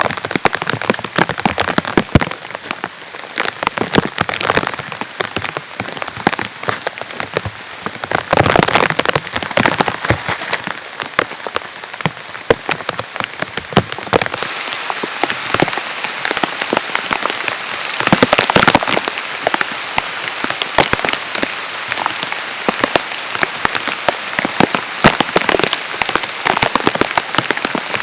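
Heavy rain falling, with many sharp drops striking close by in a dense, uneven patter that swells louder about a third of the way in and again past the middle.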